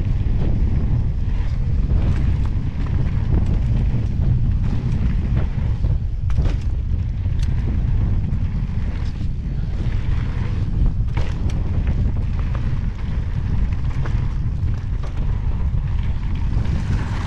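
Wind buffeting the microphone of a helmet-mounted camera while an Evil Wreckoning mountain bike descends a dry gravel trail at speed. Under the steady low rumble, the tyres crunch over stones and the bike gives off scattered clicks and rattles.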